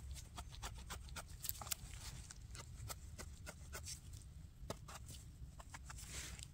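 Small knife scraping and paring dirt off the base of a porcini (king bolete) stem, a quick run of short scratching strokes with a longer scrape about six seconds in.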